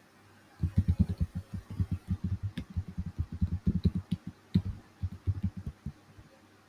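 Computer keyboard typing: a fast run of key strokes, about eight to ten a second, with a few sharper clicks among them.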